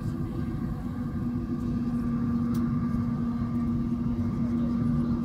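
Cabin noise of a Boeing 737-800 rolling along the runway after landing: a steady engine and airframe rumble with a low hum over it, growing a little louder about two seconds in.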